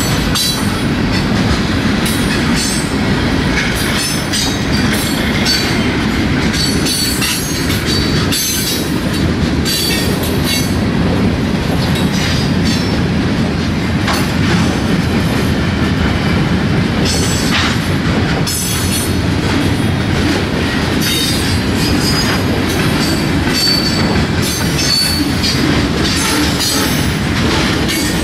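Freight cars (bulkhead flatcars and covered hoppers) of a short-line freight train rolling past at about 25 mph: a steady rumble of steel wheels on rail, with repeated clicks and brief high wheel squeals.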